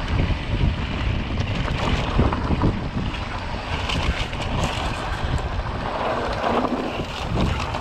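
Wind buffeting the microphone over the rumble and crunch of mountain bike tyres rolling down a dry dirt-and-gravel trail, with scattered brief rattles and clicks from the bike.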